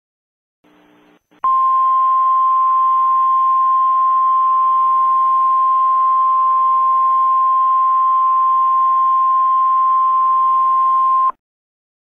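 Emergency Alert System attention tone: one steady, loud single-pitch tone near 1 kHz over a faint hiss. It starts about a second and a half in, runs for about ten seconds and cuts off abruptly, signalling that an emergency message follows.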